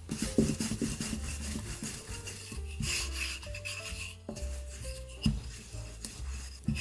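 Rubbing and scraping of dough being worked by hand on a work surface, with a few firmer strokes, over soft background music.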